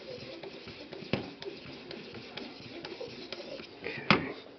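Aluminum oxide water stone on an Edge Pro sharpener stroking along a ZDP-189 steel knife edge: a steady scraping with scattered clicks. A sharp knock a little after four seconds is the loudest sound.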